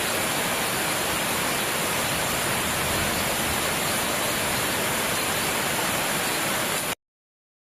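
Steady rain, an even hiss with no separate drops or tones, that stops abruptly near the end.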